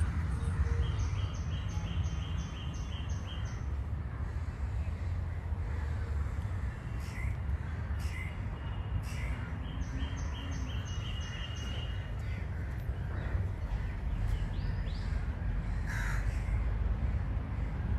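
A bird calling in two runs of about eight quick, evenly spaced notes, the first near the start and the second about halfway through, with a few single calls in between, over a steady low rumble.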